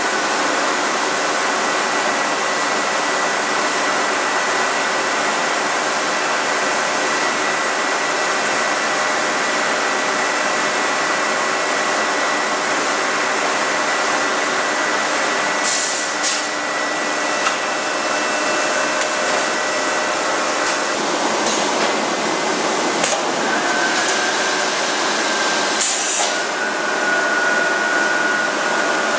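Steel rolling mill machinery running as a hot bar passes through: a loud, steady industrial din with constant whining tones. Several sharp knocks come in the second half, and a new, higher whine starts late on.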